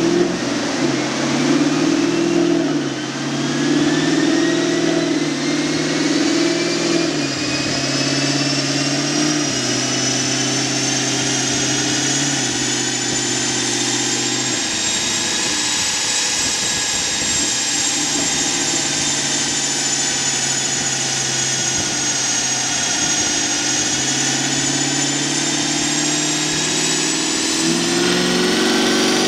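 Chevrolet Camaro SS's V8 running under load on a chassis dynamometer, its exhaust note jumping in pitch several times as it shifts through the gears. A high whine rises steadily with road speed underneath.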